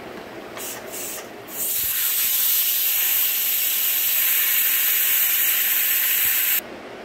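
Pressure cooker venting steam through its vent as the whistle weight is lifted with a spoon, letting out the leftover pressure. Two short hisses, then a loud steady hiss for about five seconds that cuts off suddenly.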